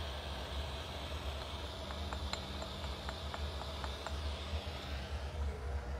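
Oxygen-fuel burner on a glass lathe burning with a steady hiss over a low hum, with a run of light ticks from about two to four seconds in.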